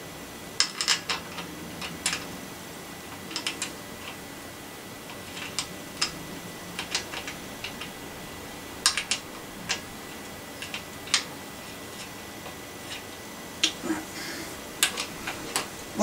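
Socket ratchet clicking in short bursts of a few clicks at a time, tightening the crank arm bolt onto the bicycle's bottom bracket axle.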